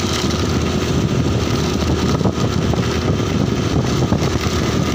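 A vehicle moving steadily along a paved road, with a continuous low rumble of engine and road noise.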